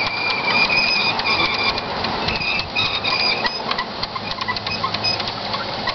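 Large-scale model freight cars rolling past on garden railway track, their wheels clicking and rattling rapidly over the rail joints, with short high-pitched squeals coming and going during the first half.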